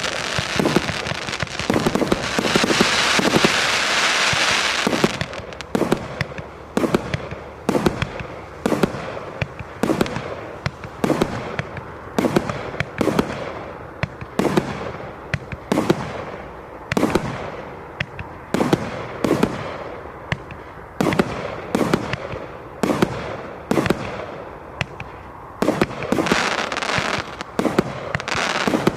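PLI1271 'Thunder and Lightning' firework going off: dense crackling for the first five seconds or so, then a long steady run of sharp bangs, about one or two a second, each ringing out briefly, with another spell of crackling near the end.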